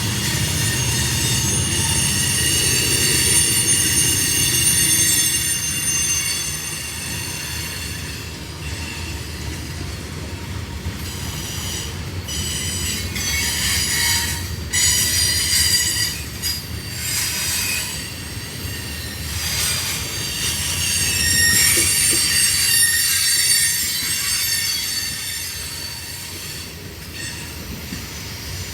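Train cars rolling past with their wheels squealing: several high-pitched squealing tones fade and return over a low rumble, with a few sharp clanks around the middle.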